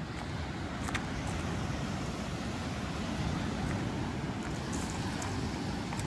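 Steady wind rumbling on the microphone over the wash of small sea waves breaking on a sand-and-pebble beach, with one faint click about a second in.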